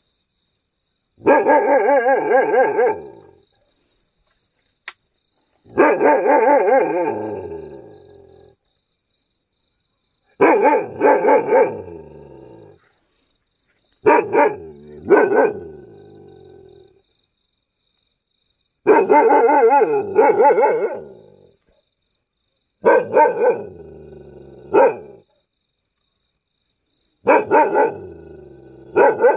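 Mudhol (Caravan) hound barking in seven bouts about four seconds apart, each bout two or three barks in quick succession that trail off.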